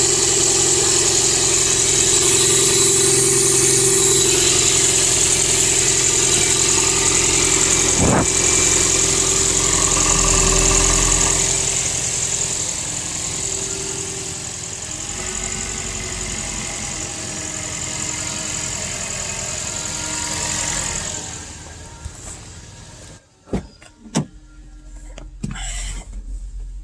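2004 Toyota Prius 1.5-litre four-cylinder petrol engine running steadily with a high hiss, easing down about halfway through and then shutting off. A few sharp clicks follow near the end.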